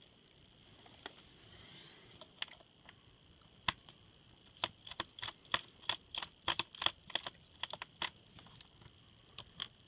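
Quick, irregular small clicks and taps of a screwdriver and tiny screws being worked against a laptop's plastic screen bezel, thickest in a dense run through the middle.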